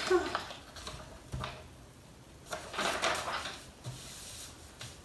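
Felt-tip markers rubbing across paper as pictures are coloured in, with a sharp click a little over a second in and a couple of soft knocks on the table near the end.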